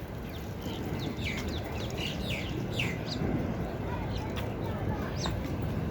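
Small birds chirping: a run of short, quick downward-sliding chirps, several a second in places, over a steady low rumble.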